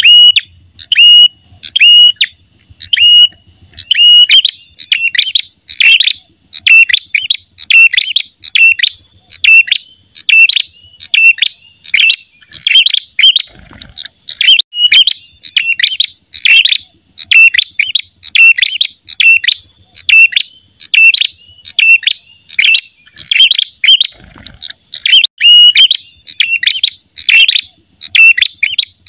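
Ashy tailorbird (red-headed prenjak) giving its fighting call: loud, sharp, high notes repeated about twice a second without a break.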